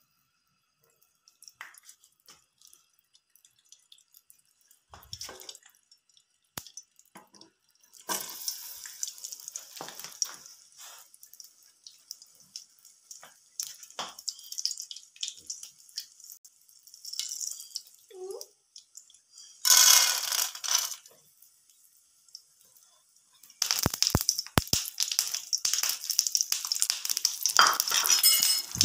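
Popcorn kernels sizzling in hot oil in a non-stick pan, with a wooden spatula scraping and stirring them. Scattered clinks and scrapes come first, a brief loud hiss about 20 seconds in, and the sizzling turns loud and continuous about 24 seconds in.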